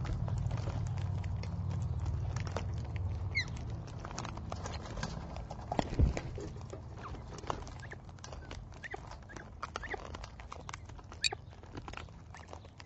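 Galahs and a sulphur-crested cockatoo pecking and cracking seed at seed bells close to the microphone: many irregular sharp clicks and taps, with a low rumble of wing flapping near the start. There is a loud thump about six seconds in and a few faint short chirps.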